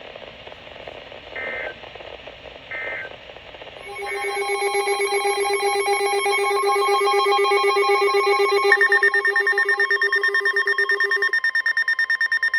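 Emergency alert receiver tones: three short data-like chirps a little over a second apart, then a loud electronic alert tone that pulses rapidly on several pitches at once and switches to a higher-pitched pattern about 9 s in. This is the alert signal that comes before the next severe thunderstorm warning.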